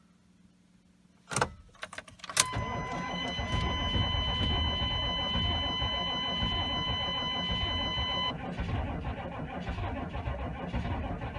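GM 6.5 L turbo-diesel being cranked over by its starter on a cold start: a few clicks, then from about two seconds in a steady churning rumble that does not catch. A steady dash warning tone sounds over the first six seconds of cranking, then stops.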